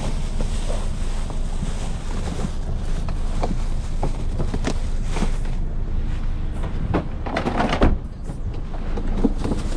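A person climbing out of a car: scattered light knocks and handling noise, then a louder thud about eight seconds in, fitting the car door being shut, over a steady low rumble.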